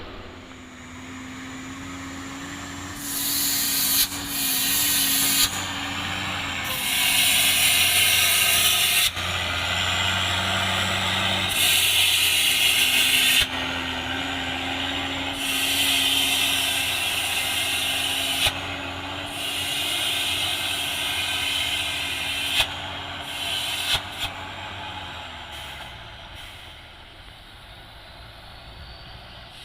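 Hino 500 concrete mixer truck going down a steep grade: its engine runs steadily under about seven loud hissing spells of one to three seconds each, typical of air brakes being applied and released on the descent. The engine tone fades near the end.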